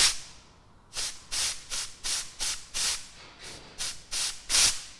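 About eleven short bursts of air hiss, roughly three a second with a brief pause midway. Air is being forced through the fuel sender unit to push fuel out of its leaking plastic fitting.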